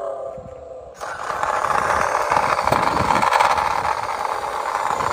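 Toy sports car rolling across concrete: its hard plastic wheels and gearing make a steady, gritty whirr with small knocks, starting about a second in. A softer wavering whine comes first.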